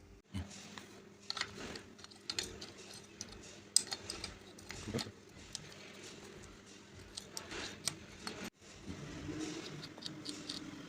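Small metal parts and hand tools being handled on a bench, giving a scattered series of light clicks, taps and clinks. The sound cuts out briefly about two-thirds of the way through.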